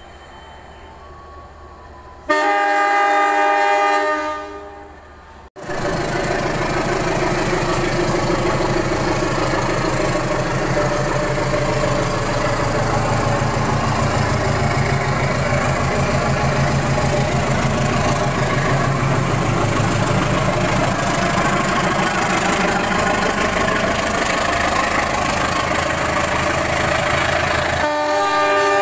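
Passenger train hauled by a CC 201 diesel-electric locomotive. A multi-tone horn sounds for about three seconds a couple of seconds in, then comes the steady rumble and rattle of the train passing, with the horn sounding again near the end.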